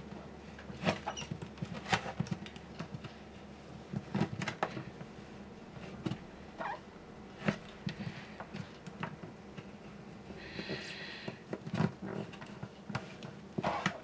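Thin palette knife being worked under the bridge of a Martin D-28 acoustic guitar to part its glue joint: irregular small clicks, scrapes and light taps against the bridge and top, with one short high squeak about three quarters of the way through.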